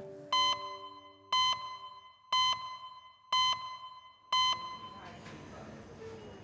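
Five short electronic beeps, evenly spaced about one second apart, each a steady high tone like a monitor or alarm beep. A faint low held tone sounds under the first two beeps and fades.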